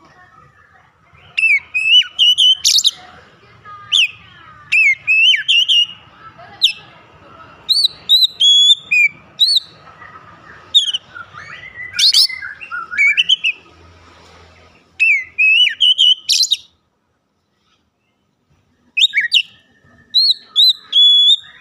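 Oriental magpie-robin singing loudly in quick phrases of rising and falling whistles and chirps, broken by short pauses. The song cuts out for about two seconds near the end, then starts again.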